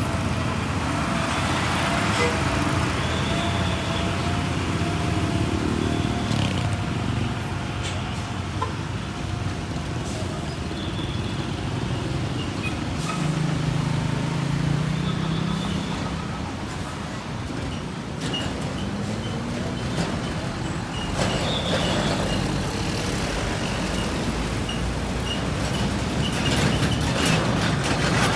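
Roadside traffic: trucks and other vehicles passing with steady engine and tyre noise, a low engine tone swelling midway.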